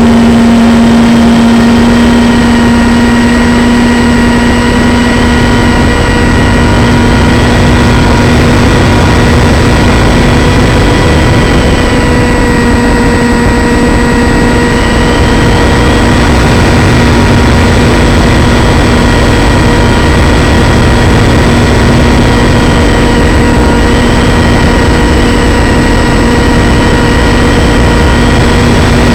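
RC plane's motor and propeller running at a steady cruise, heard close up, with a constant drone, a slowly wavering higher whine and heavy wind rumble from the airflow.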